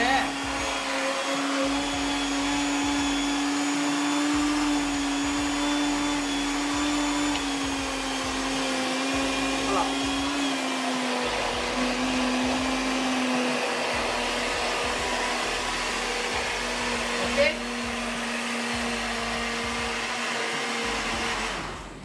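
Kitchen blender running steadily, mixing a thick pie batter of eggs, milk, oil and flour until smooth. Its motor hum sags slightly in pitch over the run, and it is switched off near the end.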